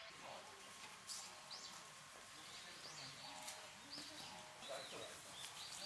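Small birds chirping: short high calls at irregular moments over faint outdoor ambient noise.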